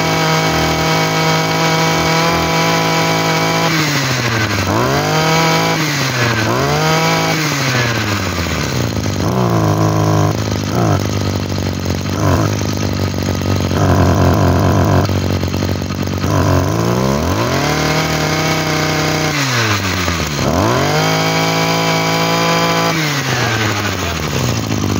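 A 23cc two-stroke brush cutter engine running and being throttled: held at high revs at first, then revved up and down a few times, idling for several seconds in the middle, then revved up twice more and dropping back near the end.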